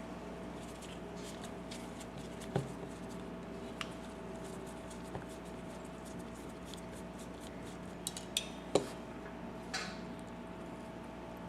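Light metallic clinks and taps of hand tools and small parts against a Honda CB350 carburetor body as its float needle valve is worked out. The clinks are scattered, with a little cluster of them about eight to ten seconds in, over a steady faint hum.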